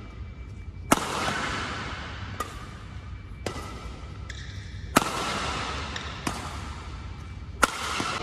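Yonex Astrox 77 badminton racquet striking a shuttlecock in a rally: six sharp cracks, with three loud full-power hits and quieter returns between them. Each hit echoes briefly around the large indoor hall.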